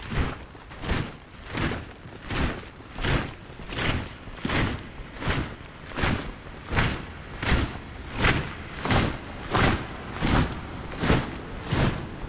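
A child's leather boots landing on gritty dirt ground as she hops in place, a steady run of thuds about one and a half a second.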